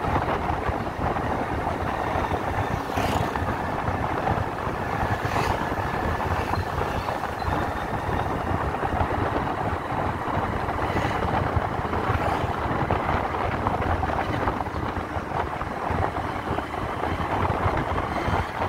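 Steady riding noise from a moving motorcycle: the engine running at an even pace under wind rushing over the microphone, with no clear change in speed.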